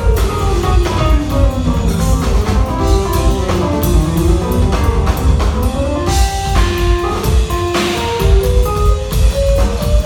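Instrumental jazz-rock fusion band playing loud and steady: a drum kit drives under fast melodic runs of short notes that climb and fall.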